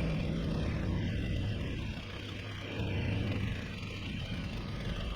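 A low, steady engine hum, dipping slightly about two seconds in and picking up again a second later.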